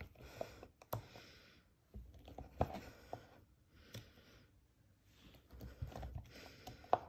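Knife slicing through a block of cheddar cheese and tapping down onto a plastic cutting board: several slices in a row, each a short soft hiss ending in a click.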